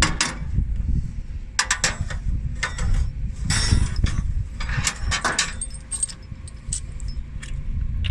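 Wrench and steel hydraulic fittings clinking and scraping as a hydraulic line is loosened off its quick coupler: a string of sharp metallic clicks with two short scraping stretches near the middle. A steady low rumble runs underneath.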